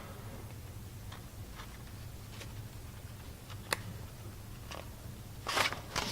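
Faint paper handling while leafing through a colouring book: a few scattered light clicks and taps, then a louder rustle of a page being turned near the end.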